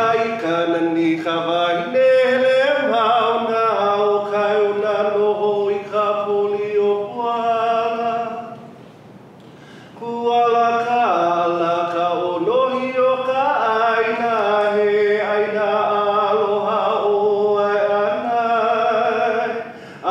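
A man chanting a Hawaiian oli solo and unaccompanied, in long held notes that waver in pitch. He breaks off for a breath about halfway through, then resumes.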